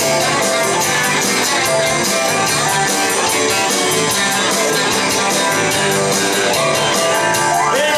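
Honky-tonk country band playing an up-tempo instrumental intro: guitar over a steady, quick drum beat.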